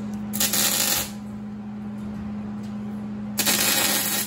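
MIG welder arcing in two short bursts of hiss, each under a second long, about a second in and again near the end, over a steady low hum.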